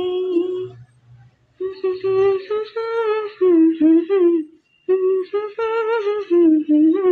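A woman humming a song tune unaccompanied, in three phrases with short breaths between them.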